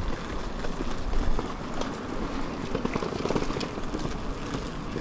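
Footsteps of several people walking on a paved path, short irregular steps and scuffs over a steady outdoor hum.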